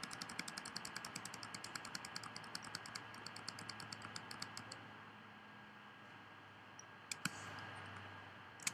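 Computer keyboard key pressed over and over in a quick, even run, about seven presses a second, stopping about five seconds in: repeated undo keystrokes. A couple of single key clicks follow near the end.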